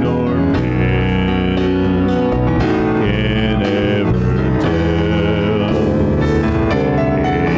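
Live church worship band playing a song, with keyboard, acoustic guitar and drums, the chords held and changing every second or two.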